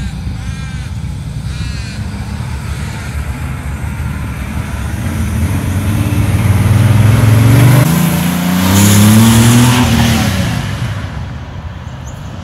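Kia Pregio van with an LS-based V12 engine accelerating hard as it drives past. The engine note climbs through one gear, dips briefly at a gear change about eight and a half seconds in, and climbs again. It is loudest as the van goes by, then fades away.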